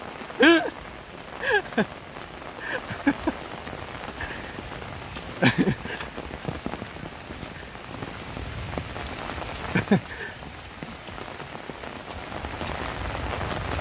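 Heavy rain falling steadily, with a few brief shouts breaking through now and then. It grows slightly louder near the end.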